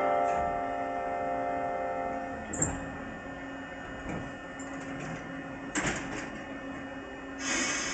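The last notes of a station's chiming departure melody fade out over the steady hum of a stopped Eizan Electric Railway Deo 700 series train. A sharp click follows, then a clatter about six seconds in, and a hiss of air near the end as the train readies to depart.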